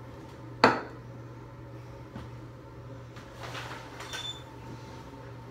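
A sharp, loud knock about half a second in as a cleaning-product canister is set down hard close by, followed later by softer rustling with a brief squeak as the plastic shower curtain is handled. A steady low hum runs underneath.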